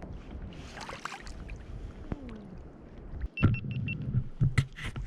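Water sloshing against a fishing kayak's hull, with knocks of gear being handled on board. A quick run of four short, high beeps comes a little after the middle, and sharp knocks come near the end.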